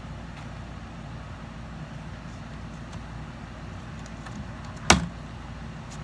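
A single sharp metallic pop from the sheet-metal door panel, about five seconds in, as it is pressed and flexed into place, over a steady low background hum.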